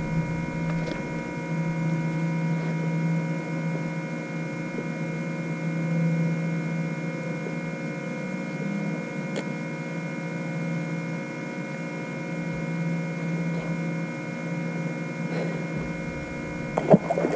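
A small electric motor on a bass boat hums steadily, with several steady tones and a few faint clicks.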